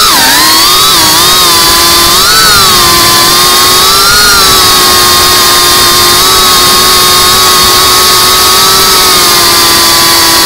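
FPV quadcopter's brushless motors and propellers whining, recorded by the onboard action camera's microphone under a loud hiss. The pitch dips and rises with throttle in the first few seconds, then holds nearly steady.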